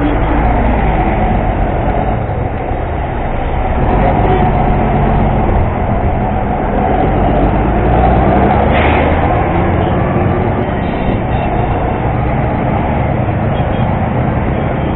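Motorcycle engine running among heavy junction traffic of buses and cars, heard through the bike-mounted camera as a steady, loud drone. The traffic rises a little about four seconds in, and near the end the bike and the traffic are moving off.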